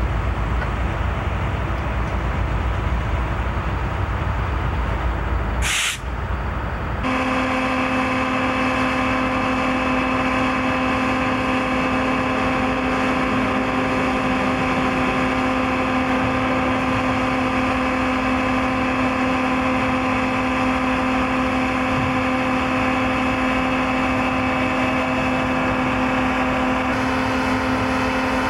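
For the first six seconds the rail train's cars roll by with a low rumble and a noisy hiss. After a sharp click about six seconds in, the rest is a steady machine hum of one constant pitch, from the stopped rail train's equipment running.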